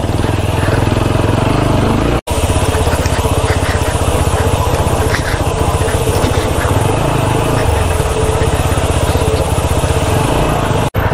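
Motorcycle engine running steadily at low road speed, heard from the rider's seat on a slow ride over a rough, rutted dirt track. The sound cuts out for an instant about two seconds in and again near the end.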